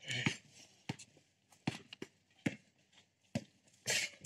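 Basketball bounced on an outdoor court: a series of separate dull knocks, roughly one every half second to second, mixed with shoe scuffs.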